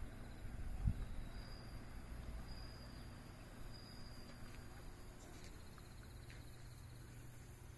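Faint insects trilling in high, pulsing tones over a low rumble that fades away during the first few seconds. A single dull thump comes about a second in.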